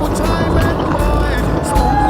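Background music over a dense, steady rumble of vehicle noise, most likely enduro dirt bike engines.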